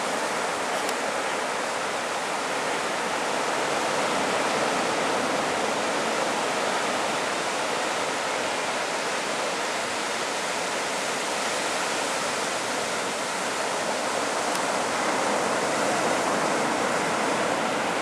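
Ocean surf breaking and washing up a sandy beach: a steady rushing hiss that swells and eases gently.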